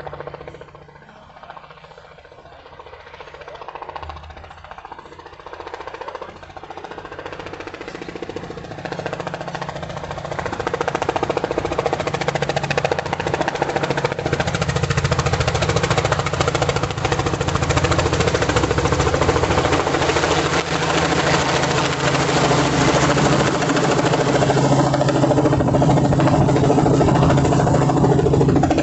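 Radio-controlled scale Robinson R44 helicopter flying, its motor and rotor running steadily with a rapid rattling chop. It grows louder over the first twelve seconds or so, then holds loud.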